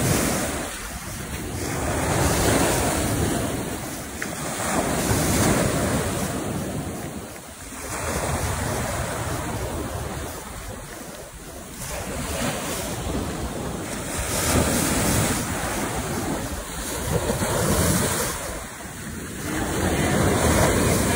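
Small waves breaking and surf washing up over a gravelly shoreline, swelling and fading every few seconds, with wind buffeting the microphone.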